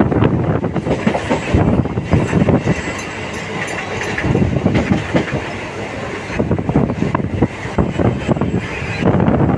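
Wheels of a moving passenger train clattering over the rail joints, a rapid, uneven run of knocks over a steady rumble, heard from the train's open doorway.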